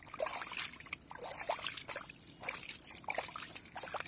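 Hand groping through a mud hole full of muddy water: wet squelching and sloshing with a quick, irregular run of small splashes and gurgling plops.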